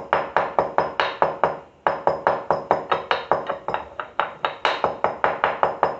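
Pestle pounding black pepper and a clove in a mortar: sharp, ringing strikes about four to five a second, with a brief pause just before two seconds in.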